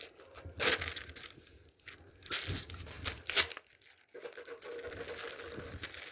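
Thin plastic water bottle crinkling and crackling as it is squeezed and handled, with sharp cracks about a second in and again past the middle, then steadier rustling.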